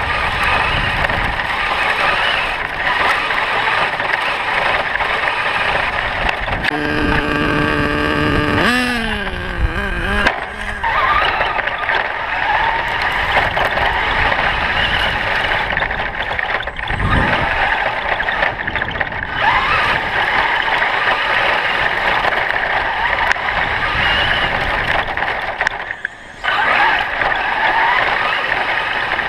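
Battery-powered Traxxas E-Maxx RC monster trucks running flat out, with the whine of electric motors and gears rising and falling over steady tyre and wind noise. About seven seconds in, a pitched whine holds for a moment and then slides down.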